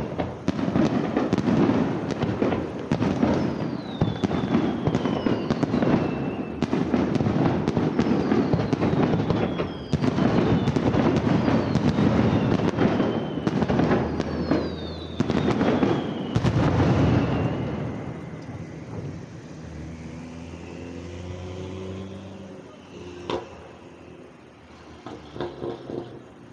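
Fireworks display: a dense barrage of shell bursts and bangs, with several falling whistling tones among them. The barrage stops about two-thirds of the way through, leaving a quieter background with a single sharp crack near the end.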